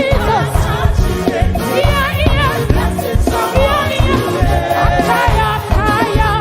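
Gospel music: choir voices singing wavering melody lines over a band with a steady drum and bass beat.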